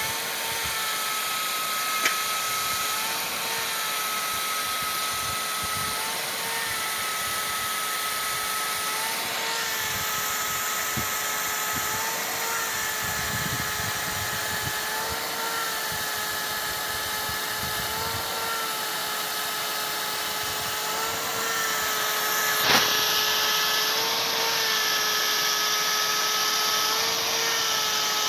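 An irrigation pump motor runs with a steady whine that dips briefly in pitch about every two seconds, over the loud hiss of water spraying from a rain-gun sprinkler. Near the end there is a sharp knock, and the spray hiss then grows a little louder and brighter.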